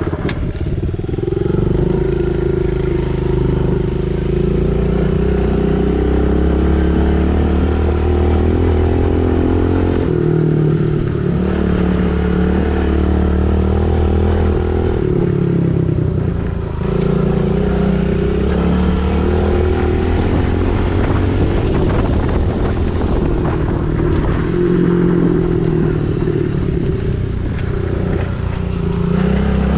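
Pit bike engine running under a rider, its pitch repeatedly climbing as the throttle opens and then dropping back every few seconds.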